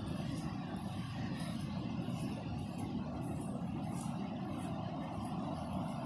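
Pacific Ocean surf heard as a steady, even low rumble.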